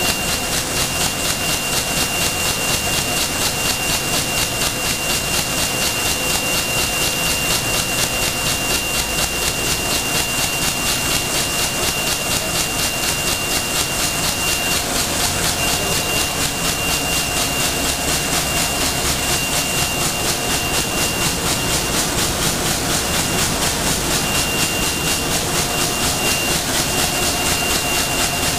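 CT-9914 left-handed wicketer, a plastic bag-making machine, running at speed: its rotating arms cycle with a fast, even rhythm of clicks over a steady high whine.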